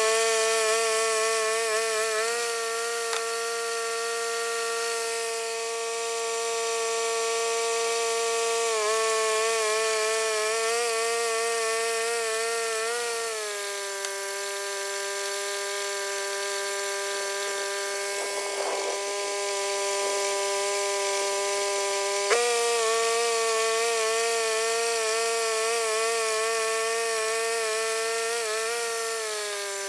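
Bandsaw mill running steadily with its blade cutting through a log. The engine note drops in pitch about halfway through, jumps back up sharply a few seconds later, and sags again near the end.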